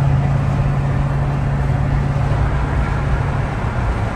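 Dodge Charger 392 Scat Pack's 6.4-litre HEMI V8 running steadily on the move, a low engine drone over road rumble. The drone fades near the end, leaving the rumble.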